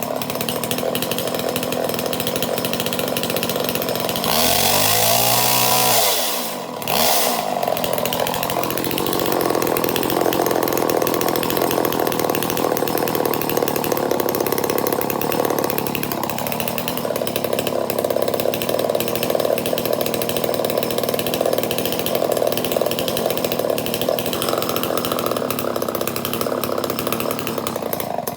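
Homelite Super XL Automatic chainsaw's two-stroke engine running, revved up and let back down once about five seconds in, then running steadily with small shifts in speed.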